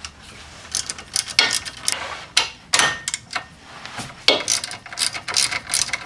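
Ratchet wrench with a 7 mm hex bit clicking in short, irregular runs as a brake caliper guide bolt is loosened, starting about a second in.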